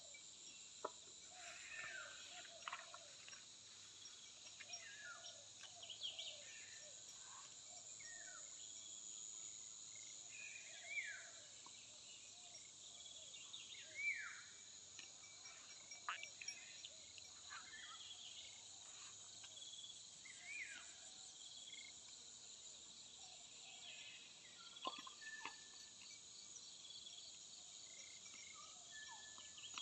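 Faint countryside soundscape: a steady high-pitched chorus of insects such as crickets, with scattered short bird chirps and sweeping calls throughout and a few sharp ticks.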